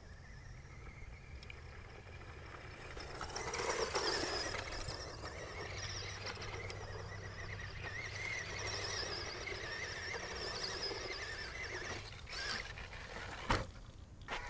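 Tamiya Sand Rover RC buggy running on a dirt road: the high whine of its brushed electric motor and gears, wavering with the throttle, over the crunch of its tyres on sand and grit. Sharp knocks come near the end as it reaches the microphone.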